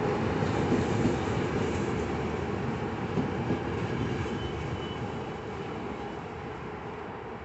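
CFR passenger coaches rolling past on the rails as an InterRegio train pulls out of the station, a steady rumble with a few louder knocks in the first half, fading as the last coach moves away.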